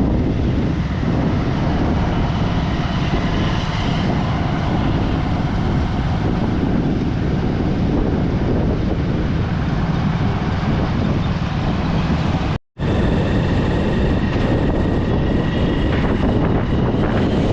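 Steady, loud rumble of wind on the microphone mixed with vehicle road noise, as when filming from a moving vehicle. It cuts out for an instant about thirteen seconds in.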